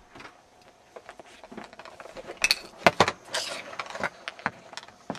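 Metal clicks, clinks and rattles of deadbolt hardware being handled, loudest and busiest around the middle, with a brief rustle among them.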